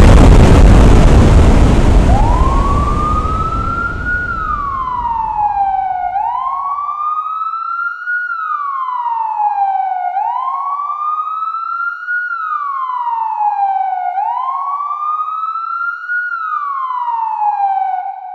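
A loud burst of noise that fades away over several seconds, overlapped from about two seconds in by an emergency-vehicle siren in a slow wail, its pitch rising and falling about every four seconds, four times over.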